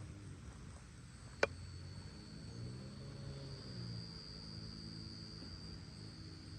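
Steady high-pitched chirring of insects, with a low hum that swells and fades in the middle. One sharp click about a second and a half in is the loudest sound.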